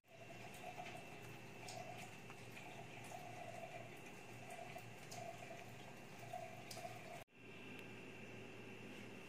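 Faint steady room tone with a low hum and a constant high whine. It cuts out abruptly twice, at the start and about seven seconds in, where pieces of footage are joined.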